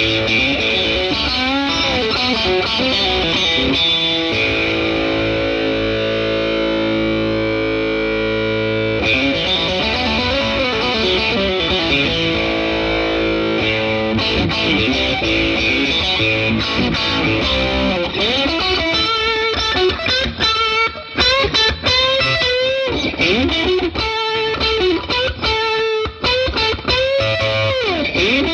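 Dean Zelinsky Private Label Tagliare maple-top Strat-style electric guitar played through a Peavey Classic 30 tube amp with an overdriven tone. A chord rings out for several seconds, then the playing turns to quicker picked lead lines with string bends.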